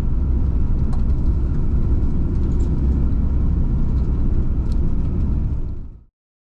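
Citroen van driving on the road, heard from inside the cab with the window open: steady low engine and tyre rumble with some wind hiss. It fades out quickly near the end into complete silence.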